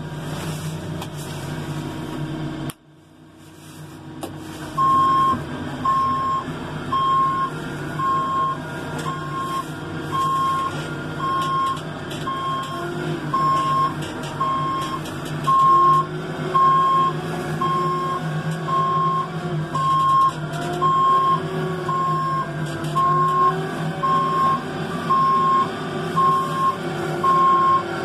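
Case 580ST backhoe loader's reverse alarm beeping evenly about once a second over its diesel engine running, heard from inside the cab. The engine runs alone at first; the sound cuts out briefly about three seconds in and the beeping starts about five seconds in.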